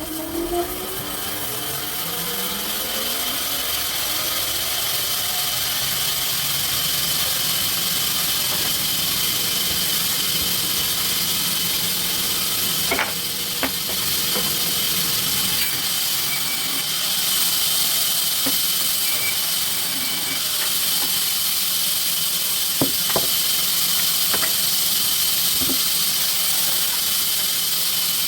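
Sawmill saw spinning up, its pitch rising in the first few seconds, then running steadily with a high whine, and a few sharp clicks and knocks now and then.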